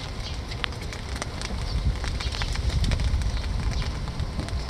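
Wind buffeting the microphone in an uneven low rumble, with scattered light clicks and taps.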